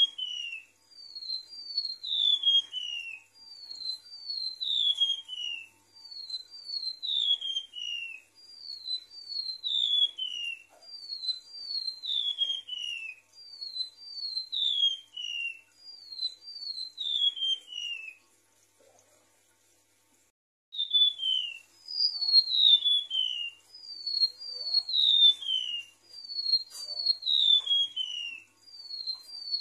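Golden-bellied gerygone (remetuk laut) singing: groups of three or four thin, high whistles, each sliding downward, repeated about every two seconds. There is a short pause about two-thirds of the way through.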